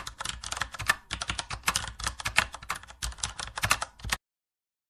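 Typing sound effect: rapid key clicks keeping pace with text being typed out on screen, which stop abruptly a little after four seconds in.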